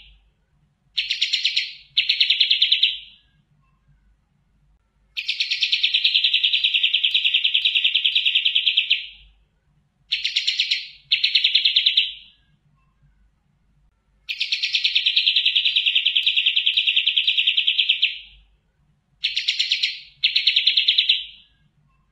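Kapas tembak singing a fast, rattling trill, repeated in a regular cycle of long trills of about four seconds, each followed by a pair of short trills of about a second.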